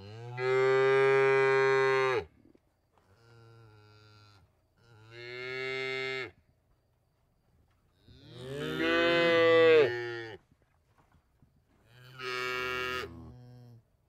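Cows mooing: five separate drawn-out moos in turn, each lasting one to two seconds, the loudest two starting about half a second in and about eight seconds in.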